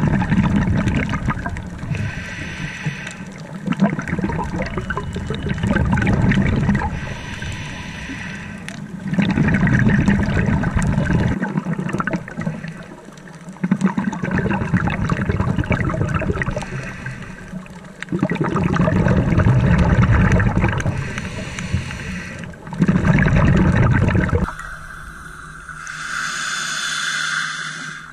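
Scuba diver's breathing heard underwater: surges of exhaust bubbles from the regulator every four to five seconds, with a quieter hiss between some of them. The sound changes to a steadier hiss about three seconds before the end.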